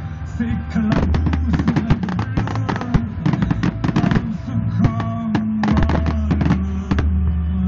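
Fireworks display: many bangs and crackles in quick succession as shells burst, over music with held notes.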